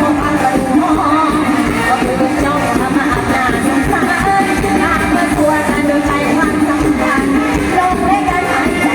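Live band music with a singer, a Thai song played loud and steady throughout.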